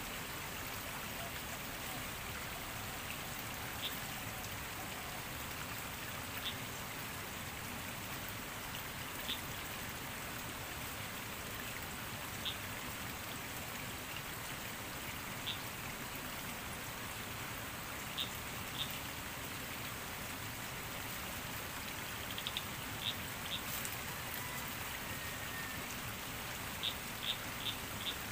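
Steady rush of a fast-flowing stream. Short faint ticks come every few seconds, with quick runs of them near the end.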